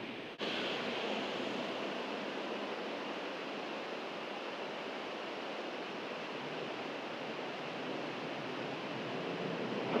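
Steady, even rushing background noise with a brief dropout about half a second in. Near the end the sound of a 183 series electric train approaching in the distance starts to grow louder.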